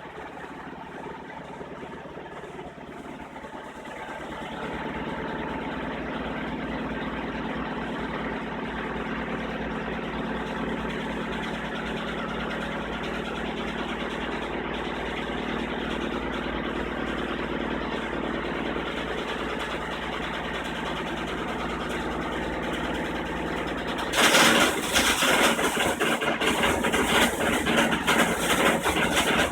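Samsung WF405 front-loading washer in its spin cycle: a steady machine hum that grows louder about four seconds in. About 24 seconds in, a loud, rapid banging begins and keeps going, with the machine vibrating. This is a fault that is not like an unbalanced load, and it has been getting worse.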